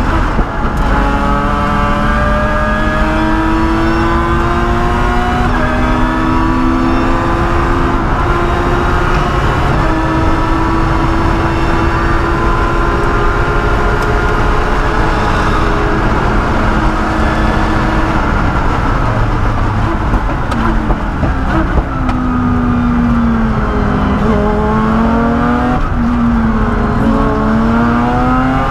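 In-cabin sound of a Lotus Exige Cup race car's engine at full throttle, rising in pitch through the gears with quick upshifts, then holding high revs on a long straight. About three quarters of the way through it drops in pitch through several downshifts with throttle blips under braking, and near the end it accelerates again.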